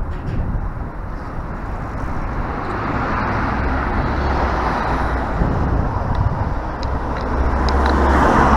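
Road traffic on the bridge roadway close by, cars passing with the noise swelling twice, over a low steady rumble.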